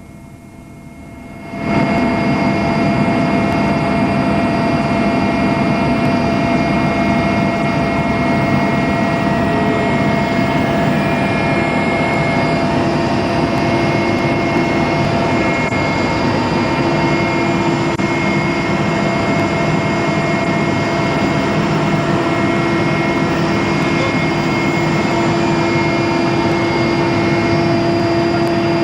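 Helicopter running steadily: a constant engine and rotor drone with a high whine, starting suddenly about two seconds in.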